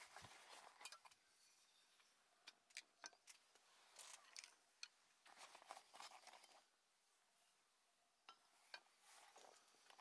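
Faint scattered clicks, clinks and light scrapes of metal camp cookware and gear being handled, in small clusters with a short quiet gap near the end.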